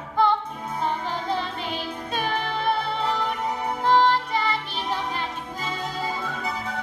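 Musical-theatre song: a girl's voice singing held notes over an accompaniment with a steady low bass pulse.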